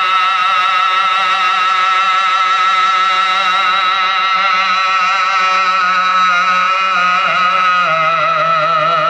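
A man's voice into a microphone holding one long, wavering note of a noha, the lament chanted in Muharram mourning; the pitch moves a little near the end.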